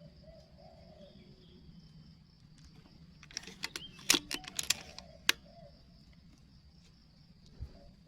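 A quick run of sharp clicks and taps between about three and five seconds in, over a faint steady insect hum. A low, wavering cooing call, typical of a dove, sounds faintly at the start and again just after the clicks.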